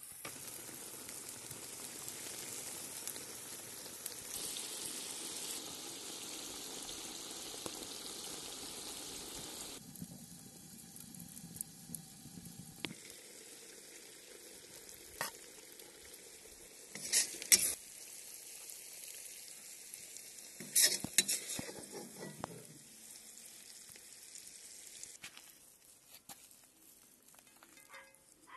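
Potatoes, pork and bacon with egg and cream sizzling in a kazan over a campfire, a steady hiss that drops away about ten seconds in. Later come a few sharp clinks of a utensil on the dishes.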